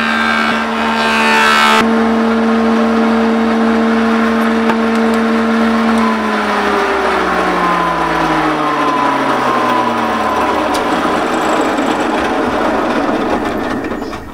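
Jointer-planer's cutterhead shaving the end grain of a jacaranda slab for about the first two seconds, then running free with a steady hum. About six seconds in the hum drops in pitch as the machine winds down, with a steady rushing noise carrying on under it until near the end.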